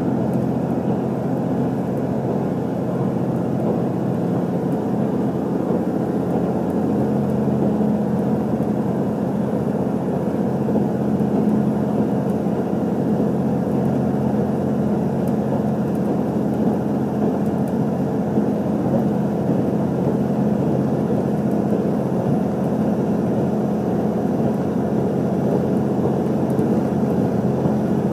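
Steady running noise of an HC85 series hybrid diesel express train at speed, heard from inside the passenger car: a continuous rumble of wheels on rail with a low, even drone underneath.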